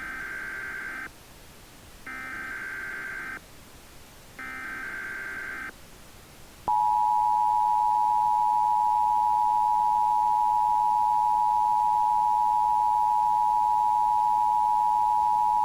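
Emergency Alert System start: three short bursts of SAME header data, a buzzing digital warble about a second each with a second's gap between them. Then the loud, steady two-tone EAS attention signal begins about six and a half seconds in.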